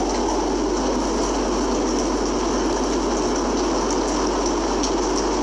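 Heavy rain pouring down in a steady hiss, with faint scattered ticks of drops striking nearby.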